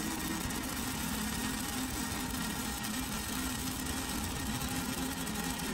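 Stick-welding arc from a 5/32-inch 6010 electrode crackling and hissing steadily as a bead is run on steel pipe, with a faint low hum underneath.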